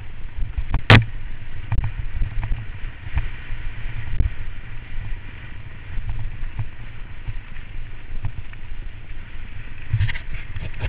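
Mountain bike rolling over a rough gravel track, heard through the bike-mounted camera as a constant low rumble with irregular rattling knocks and jolts; one hard jolt about a second in.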